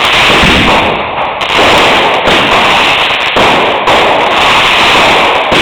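Consumer fireworks going off in a loud, dense, continuous crackle of rapid small bangs.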